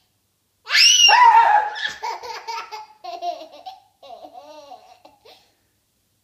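A loud high-pitched scream about a second in, breaking straight into a toddler's giggling laughter in short choppy bursts that grow fainter and stop about a second before the end.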